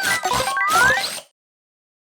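Playful cartoon music with a regular beat, short bell-like tones and whistle tones sliding up and down, cutting off abruptly about a second in, followed by silence.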